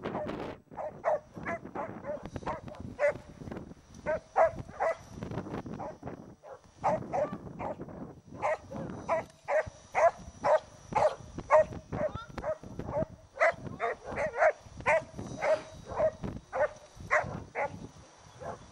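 Australian shepherd barking over and over at the sheep it is herding, short sharp barks about two to three a second.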